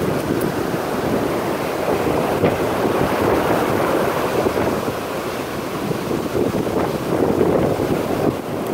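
Ocean surf washing up the beach, mixed with wind buffeting the microphone: a steady rushing noise that swells a little twice.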